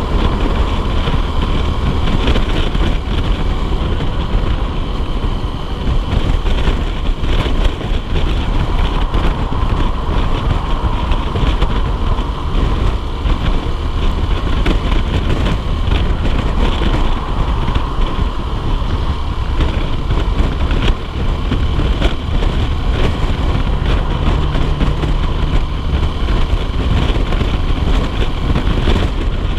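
Honda CBF125R motorcycle being ridden: its single-cylinder engine running steadily under heavy wind rumble on the microphone.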